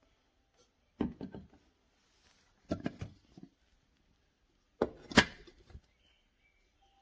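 Three brief clusters of knocks and clicks on a hard surface, about two seconds apart, the last the loudest.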